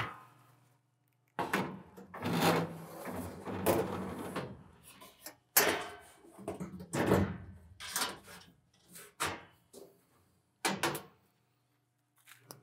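Stainless steel work surface panels of a biological safety cabinet being handled: a series of metal scrapes and knocks as they are lifted out and set back into place, with two sharp knocks near the end.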